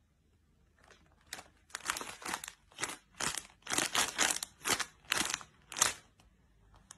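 A plastic packaging bag being crinkled in a hand: a quick run of short, sharp crackling bursts that starts about a second in and stops shortly before the end.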